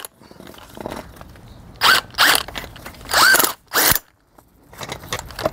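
Cordless impact wrench firing in four short bursts, each with a rising-and-falling whine, as it spins the 18 mm nut off the top of a removed front strut's shaft.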